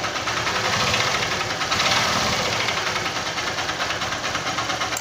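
A 150 cc single-cylinder motorcycle engine running with a rapid metallic knock, the sign of a damaged connecting rod (big-end). The engine swells a little about two seconds in as it is revved, then eases back.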